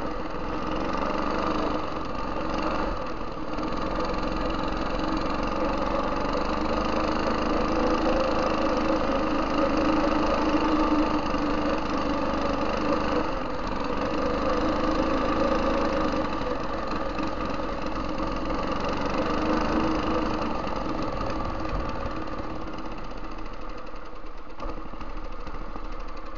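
Tecumseh HM80 8 hp single-cylinder engine running on a go-kart under way, its level swelling and easing with the throttle and dropping off a little near the end.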